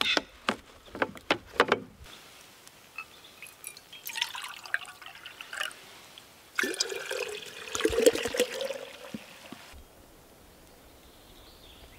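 Birch sap poured from a plastic bottle into a glass jar: a splashing, gurgling pour that is loudest for about three seconds past the middle. It is preceded by a few sharp clicks and knocks of the bottle being handled.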